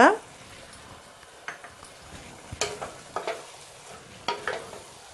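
A wooden spatula stirring drumstick curry thinned with tamarind water in a pot, its strokes scraping in quick pairs from about a second and a half in, over a steady sizzle from the pot.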